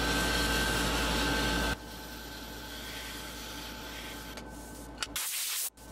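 Wood lathe running with a large MDF disc spinning while a hand-held sanding pad is pressed against its polyurethane-coated face, knocking down high spots in the dried finish: a steady hiss over the motor's whine. It turns quieter about two seconds in, and the sound changes abruptly near the end.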